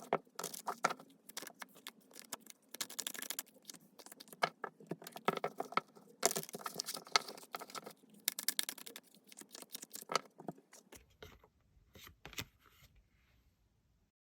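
Tarot cards being shuffled and handled: dense runs of quick papery clicks and flicks in bursts, thinning to a few scattered taps before stopping near the end.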